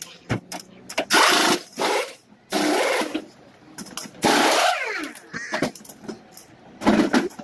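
Pneumatic wheel guns whirring in repeated short bursts during a race car's tyre change, with a whining pitch that falls and rises as a gun spins down and up about four to five seconds in.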